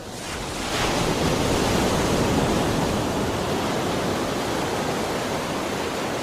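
Steady rushing noise, like surf or a waterfall, that swells up over the first second or so and then cuts off suddenly near the end.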